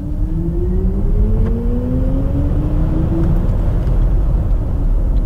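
BMW iX artificial electric drive sound (IconicSounds Electric) played into the cabin as the car accelerates: synthetic tones rise in pitch together over the first three seconds, then level off and begin to fall near the end. A steady low rumble of road noise lies beneath.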